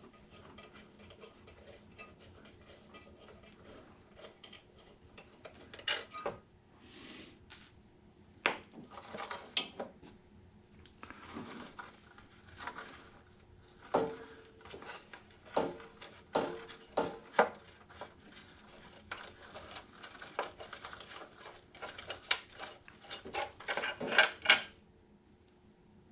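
Metal hand tools and small metal parts clinking and knocking while a small engine's carburetor is worked on. The clinks are irregular and sparse at first, then come in a busy run, with the loudest cluster just before they stop.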